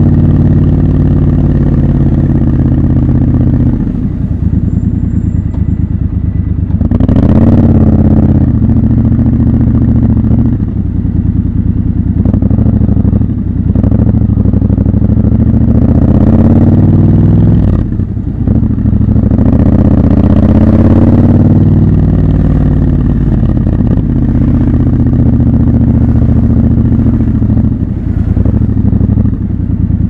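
Triumph Scrambler 1200 XC's 1200 cc parallel-twin engine running while the motorcycle rides in city traffic. It is loud throughout. It rises in revs three times as the rider accelerates and eases off in between.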